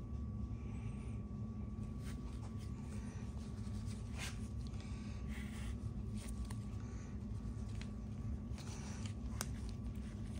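Scattered clicks and short scratchy scrapes of a hand grease gun and bearing packer being worked to force grease into a wheel bearing, over a steady low hum.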